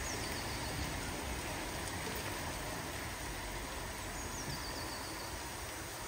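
Steady hiss of steam escaping from a standing BR Standard Class 4 2-6-4 tank locomotive at the water column.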